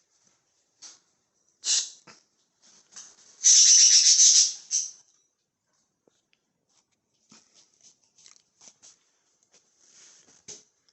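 A few sharp clicks, then a loud, raspy rattle about three and a half seconds in that lasts just over a second, followed by faint scattered ticks and scratches.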